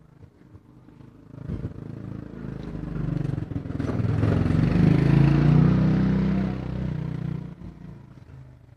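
A motorcycle engine passing by: it grows louder over a few seconds, is loudest about halfway through, then fades away.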